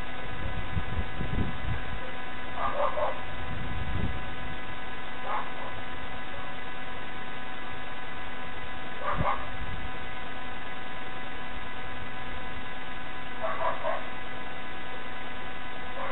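Steady electrical hum with five short barks, a few seconds apart, from a dog.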